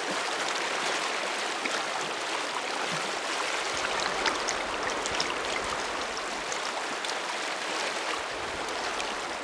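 A river running past icy, snowy banks: a steady rush of flowing water.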